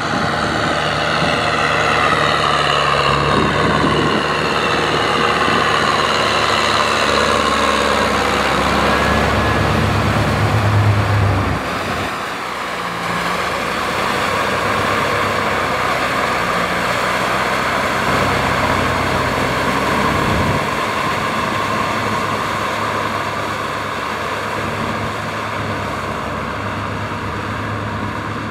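Kubota M6040SU tractor's diesel engine running steadily as it works a flooded rice paddy with its front blade and rear rotary tiller, its pitch shifting a little with the load; the sound drops slightly about halfway through.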